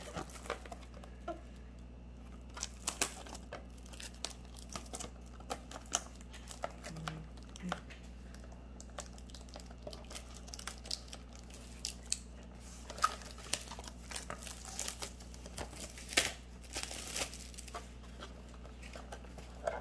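Plastic shrink-wrap crinkling and tearing as a sealed trading-card mini box is unwrapped by hand, in scattered irregular crackles and rustles.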